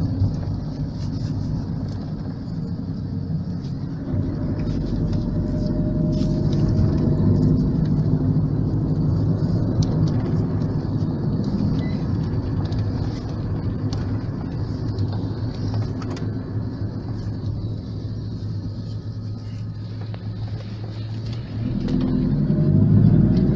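Passenger van driving, heard from inside the cabin: a steady low rumble of engine and road noise that grows louder about four seconds in and again near the end.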